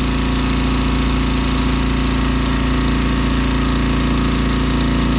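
Air compressor running steadily, pumping air into newly roughed-in water lines to build pressure for a leak test.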